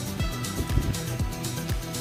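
Background music with a steady beat: an electronic-style track with a kick drum about twice a second under held synth tones.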